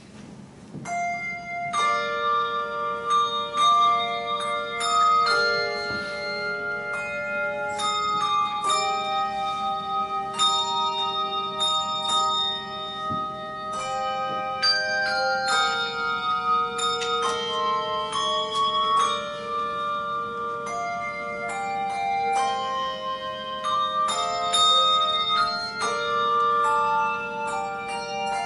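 A handbell ensemble playing a tune, several bells ringing at once with their notes overlapping and sustaining. The ringing starts about a second in.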